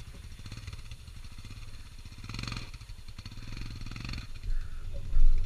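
Royal Enfield Himalayan's single-cylinder engine running at low revs, swelling twice as the throttle is opened while the bike struggles up a slippery mud climb. A couple of loud knocks near the end.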